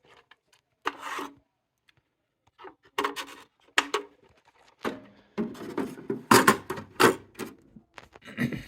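Candy wheel of a candy vending machine head being worked by hand to line it up over the chute: intermittent scraping and rattling, sparse at first and busier and louder in the second half.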